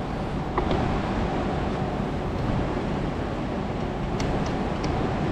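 Steady mechanical hum and hiss of a fan-like machine running, with a few light clicks about half a second in and around four seconds in.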